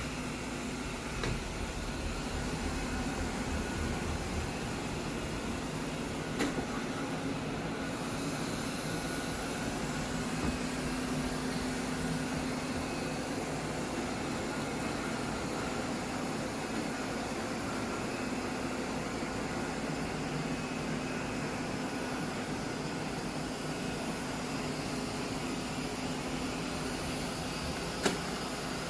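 Ecovacs robot vacuum cleaner running with a steady hum, with a light knock about six seconds in and another near the end.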